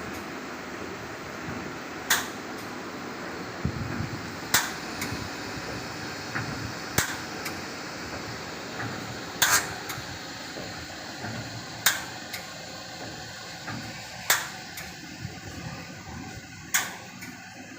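Bottle washing machine running: a steady mechanical noise with a sharp knock about every two and a half seconds as it cycles.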